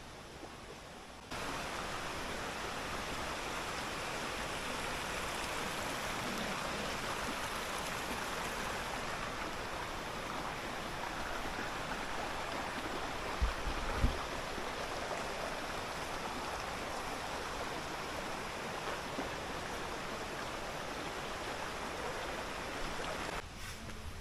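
River water rushing steadily, starting abruptly about a second in and stopping shortly before the end. Two brief low thumps come about halfway through.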